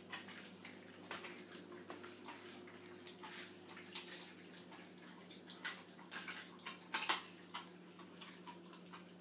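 German Shepherd chewing and tearing at a piece of raw meat: irregular wet smacking and clicking, loudest in a few bursts around six and seven seconds in.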